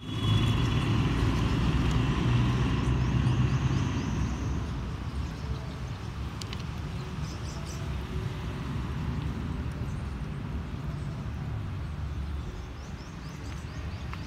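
Low, steady rumble of a distant vehicle engine, loudest for the first four seconds and then settling to a lower, even level.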